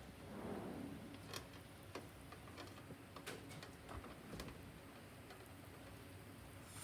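Faint, scattered clicks and taps, a second or more apart, over a low steady background hiss, with a soft rustle in the first second.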